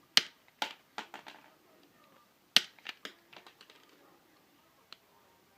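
Sharp clicks and snaps of a hand-squeezed wire stripper and cutter being worked, in two quick clusters about two and a half seconds apart, with one small click near the end.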